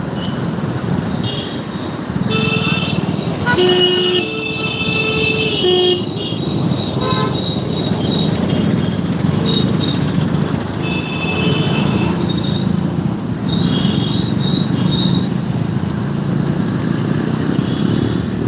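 Vehicle horns honking again and again in dense motorcycle and car traffic, over a steady rumble of engines and road noise heard from a moving motorbike. The longest and loudest honk lasts about two seconds, around four seconds in; shorter toots follow every few seconds.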